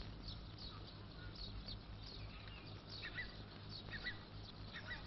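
Faint bird chirping: short, high, downward chirps repeating several times a second, over a low steady hum.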